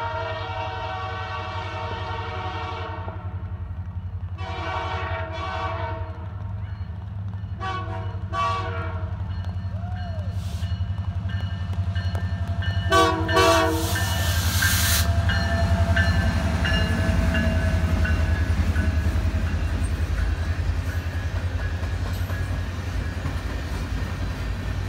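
Canadian Pacific Holiday Train's diesel locomotive sounding its horn as it approaches: a long blast, a second long blast, then shorter ones, like the long-long-short-long grade-crossing signal, and one more short blast as it passes. Then the steady rumble of the train passing close by, with the even clickety-clack of wheels on rail joints.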